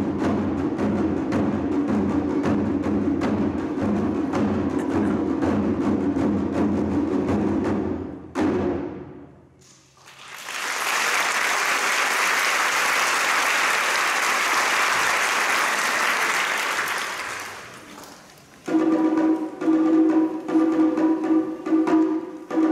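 Taiko drumming, dense and fast, breaks off about eight seconds in and dies away. Applause follows for several seconds, then the drums start again near the end in a steady, even rhythm.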